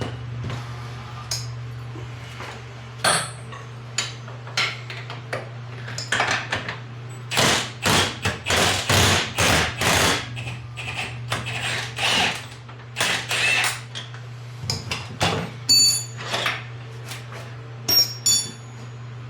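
Sharp metal-on-metal strikes and rattles from hand-tool work on a Can-Am Maverick X3's suspension knuckle bolts. They are scattered at first, with a dense run of strikes about halfway through and a few ringing hits near the end, over a steady low hum.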